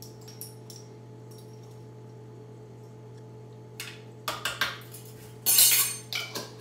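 Small metallic clicks and clinks of a metal measuring spoon and a yeast jar, with a louder half-second clatter about five and a half seconds in as the spoon goes down on the stone countertop and the jar's lid is screwed shut. A steady low hum runs underneath.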